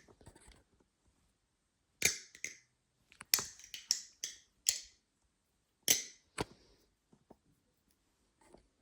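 Balisong handles clacking against each other as the balisong is flipped through the Y2K trick: sharp clicks, some single and some in quick clusters, with a few faint ticks near the end.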